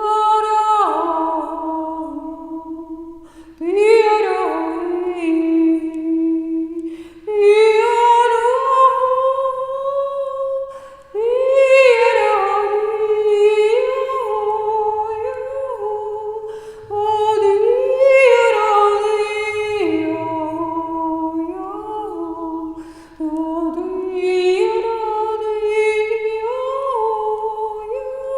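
A woman's unaccompanied, wordless vocalizing: long held tones in phrases of a few seconds, each sliding up in pitch at its start, with short breaks between phrases. It is improvised chant-like singing that the healer treats as Reiki energy coming through her voice.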